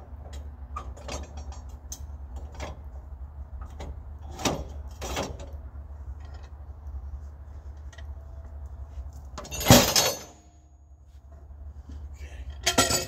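An elm log being levered and rolled over on a portable sawmill's steel bed with the manual log-turning lever: a run of scattered metal clanks and knocks, the loudest a heavy thump about ten seconds in as the log rolls over onto the bunks. A low steady hum runs underneath.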